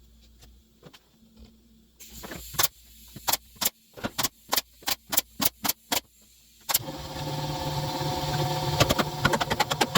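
About ten sharp knocks on wood, roughly three a second, then about two-thirds in a power drill-driver starts and runs steadily with a rapid clatter, driving screws into the wooden hive cover.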